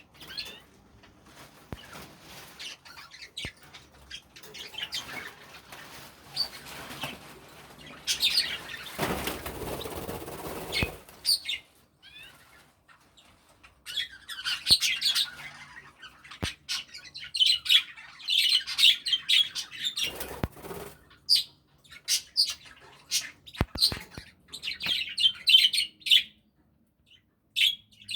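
Pet budgerigars chirping and chattering in short high bursts, with a spell of wing flapping about nine to eleven seconds in.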